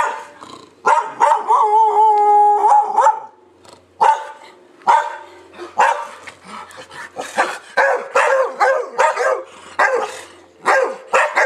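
Dog barking repeatedly at visitors coming in the door, with one long held howl-like cry about two seconds in. The barks come about once a second and crowd closer together later on.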